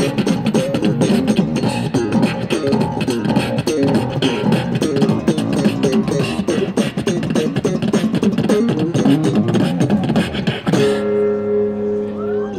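Street beatboxer on a microphone with an amplified guitar: a fast stream of beatboxed kicks and snares over plucked guitar. Near the end the beat stops and a single chord is left ringing.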